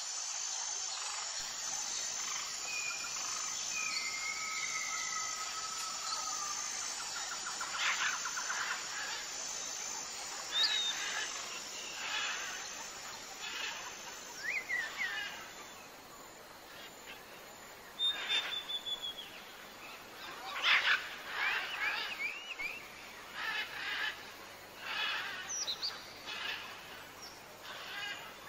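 Small birds chirping and calling outdoors: scattered short whistles, trills and rising chirps over a steady background hiss, with a faint high note repeating at a regular pace for about the first half.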